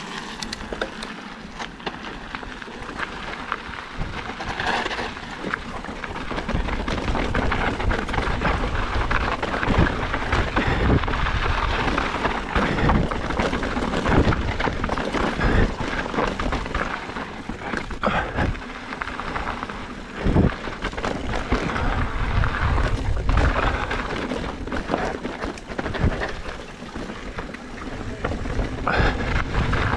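Mountain bike ridden over a rough trail: tyres on dirt and rock, the bike rattling with many sharp knocks over a low, steady rumble. It gets louder a few seconds in and eases off near the end.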